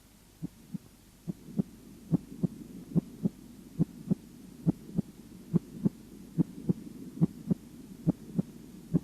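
Human heartbeat as heard through a stethoscope: regular pairs of short low thumps, the first and second heart sounds (lub-dub), about seventy pairs a minute.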